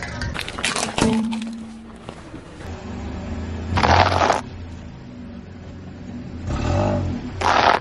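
A car tyre crushing things: aluminium drink cans crackling and crumpling in the first second, then loud bursts of crunching from a pile of dry elbow macaroni, about 4 s in and again near the end.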